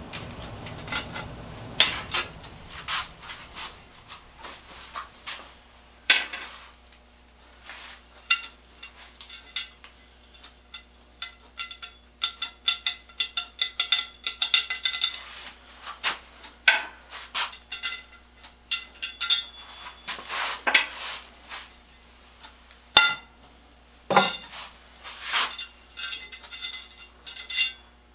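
Metal parts and hand tools clinking and clanking as they are handled, in irregular sharp knocks, some ringing. A low rumble underneath stops about four seconds in.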